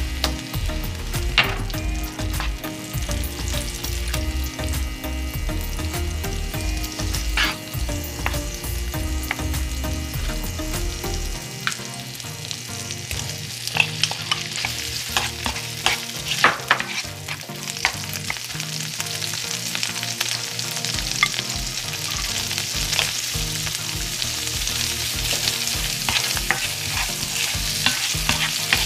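Butter, minced garlic and raw shrimp frying in olive oil in a nonstick pan, sizzling, with a wooden spoon stirring and knocking against the pan. The sizzle grows louder about halfway through as the shrimp go in, with a cluster of knocks, and a low hum stops around the middle.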